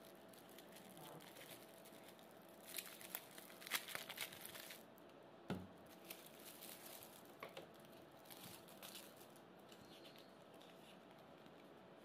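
Thin clear plastic bag crinkling and rustling as hands handle it and pull the sticker sheet and leaflet out. The crinkling comes in a cluster about three to five seconds in, followed by one sharp tap and a few lighter ticks.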